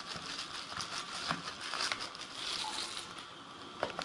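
Thin translucent wrapping sheet crinkling and rustling as it is pulled off a smartphone by hand, easing off about three seconds in, with a couple of sharp clicks near the end.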